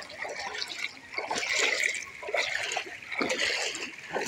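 Floodwater splashing and sloshing in bursts about once a second, the sound of feet wading through it.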